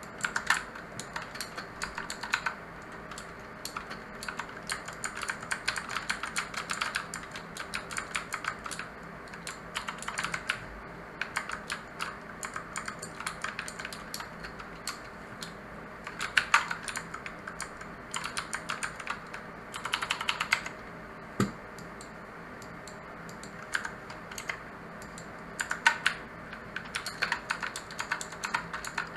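Typing on a mechanical keyboard with blue (clicky) switches, in fast runs of sharp keystroke clicks broken by short pauses.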